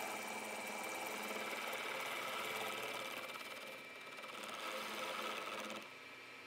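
Milling machine end mill cutting into a metal block: a steady machining noise with a high, steady whine. It eases briefly about four seconds in and drops away about six seconds in.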